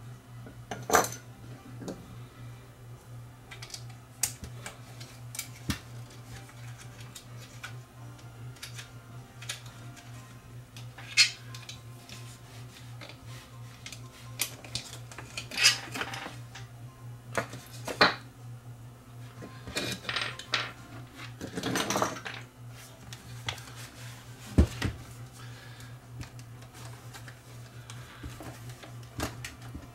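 Scattered clicks, knocks and clatters of hard plastic camcorder parts and small hand tools being handled and set down on a workbench, with a stretch of rustling handling about two-thirds of the way in, over a steady low hum.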